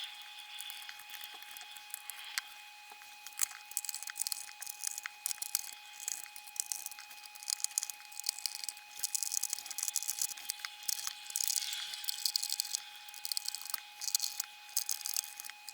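Crosshead screwdriver driving the casing screws back into a BOSS RC-505 loop station, giving irregular small clicks, scrapes and rattles of metal screws and plastic housing being handled.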